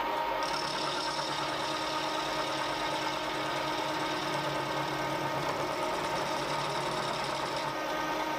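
Milling machine running with an end mill cutting an aluminium bronze crosshead, a steady machining sound with a high thin cutting tone from about half a second in until shortly before the end.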